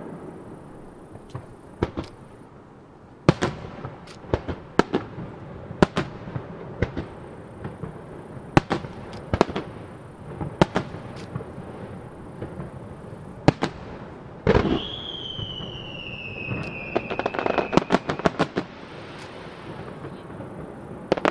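Starmine fireworks display: aerial shells bursting in sharp, irregularly spaced bangs. Past the middle a long whistle falls slowly in pitch for about three seconds, and near the end come rapid clusters of crackling bursts.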